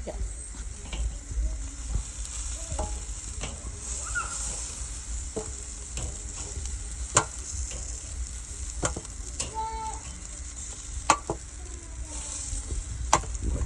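Chicken thighs sizzling on a grill: a steady hiss broken by occasional sharp pops and crackles.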